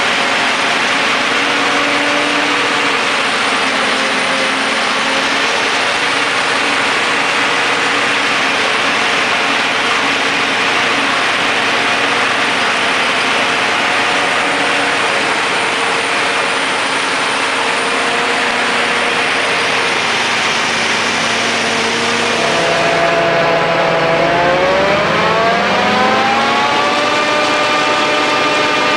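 John Deere 7950i self-propelled forage harvester running under load in maize: a loud, steady engine and machinery noise. About 23 seconds in, a whine rises in pitch over a few seconds and then holds at the higher pitch.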